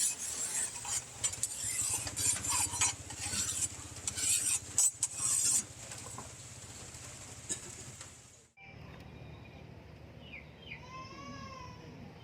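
Repeated scraping strokes of a file on the steel of a rebar knife blade, stopping abruptly a little over two-thirds of the way in. After that, a low steady background with a few short whistled calls that rise and fall near the end.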